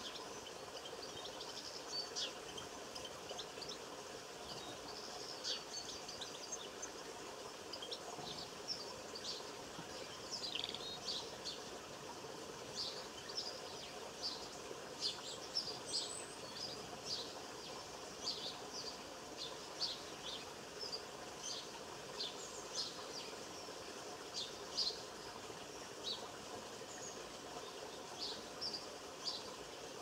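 Small songbirds chirping and singing: many short, high chirps and brief song phrases, scattered irregularly. A faint steady hum lies beneath them.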